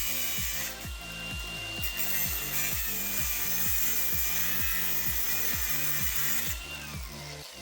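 Angle grinder cutting through the metal of a scrapped air compressor, a steady high grinding whine whose pitch sags about two-thirds of the way through as it bites under load. Background music with a steady beat runs underneath.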